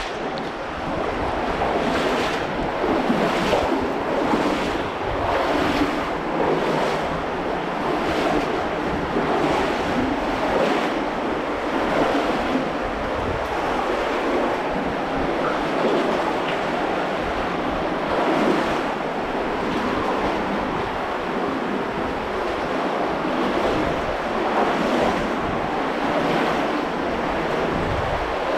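Cave stream flowing: a steady rush of water that fills the space.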